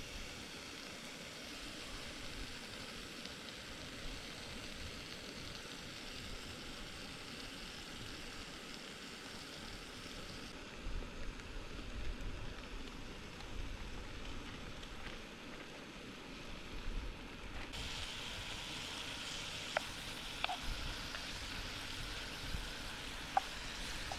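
Food sizzling as it fries in a pan, a steady crackling hiss, with a few light clicks near the end.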